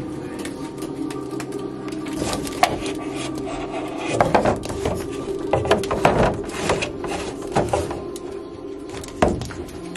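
Cardboard ice cream pints being lifted out of and set back into a freezer door shelf: a run of knocks, taps and scrapes, busiest in the middle, over a steady hum.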